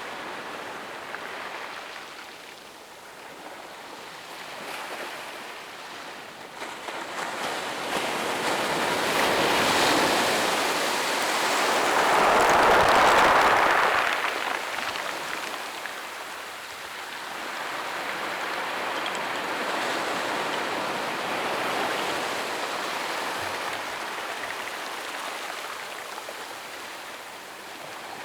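Gentle ocean waves breaking and washing up a sandy beach, rising and falling slowly, with the loudest wave breaking about halfway through.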